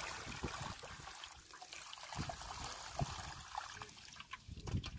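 Water splashing and sloshing in a metal pot as live fish thrash and a hand moves among them, with scattered small knocks against the pot.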